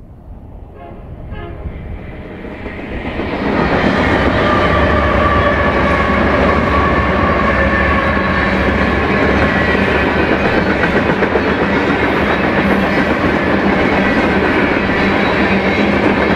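A BNSF freight train hauled by several diesel locomotives approaching and passing close by. The sound swells over the first few seconds as the locomotives draw near, then holds as a loud, steady rumble of engines and of wheels on rail as the freight cars roll past.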